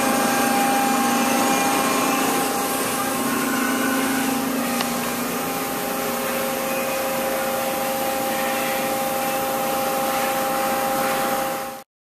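Steady machine hum and hiss with a few held tones over it, cutting off suddenly near the end.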